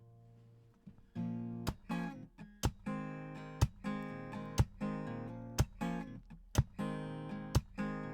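Instrumental song intro on acoustic guitar: a held chord fades out, then steady strumming starts about a second in, with a sharp accent about once a second.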